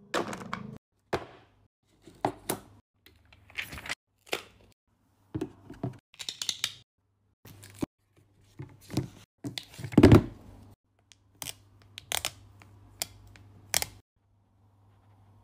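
Phone packaging and accessories being handled: an irregular run of rustles, scrapes, taps and clicks on cardboard and plastic, with a louder dull thump about ten seconds in.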